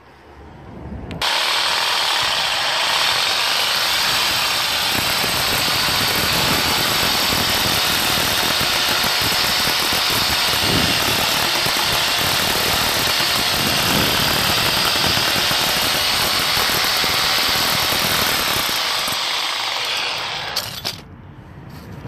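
Power saw cutting through the old metal valve fitting in a cast iron radiator's end. It runs steadily, starting about a second in and stopping shortly before the end.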